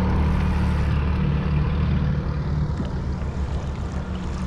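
A motorboat's engine running steadily, a low hum that eases off slightly near the end.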